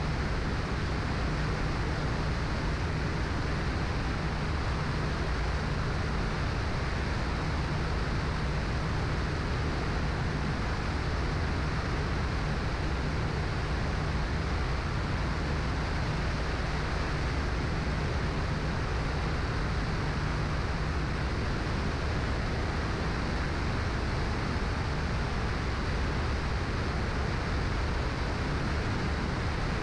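Cessna 172's six-cylinder Continental O-300 engine and propeller droning steadily in cruise flight, mixed with a constant rush of air. A low hum in the drone drops back a little about two-thirds of the way through.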